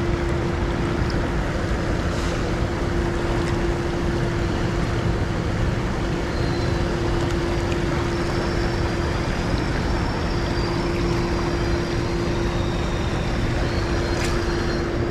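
Creek water rushing steadily through a riffle, with a constant low hum underneath.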